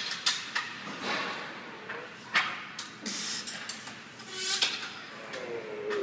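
A lifter breathing forcefully through a heavy barbell back squat set, with several sharp hissing breaths between reps and a low, falling strained groan near the end.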